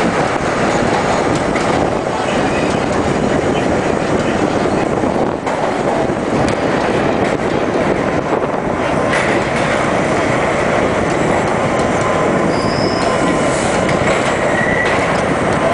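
R-32 New York subway train running through a tunnel, heard from inside the front car: a loud, steady rumble of steel wheels on rail. Brief high wheel squeals come in during the second half as it reaches a station.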